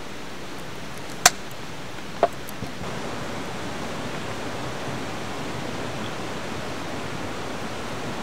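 A steady rushing hiss, with two sharp clicks a little over a second in and about a second later.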